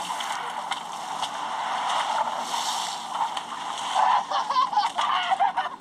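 Water splashing and rushing against a small boat's hull, a steady hiss with a few sharp knocks. A person's voice comes in about four seconds in.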